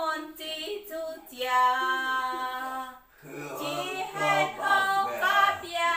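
A woman singing a simple song in Taiwanese unaccompanied, with long held notes between short phrases.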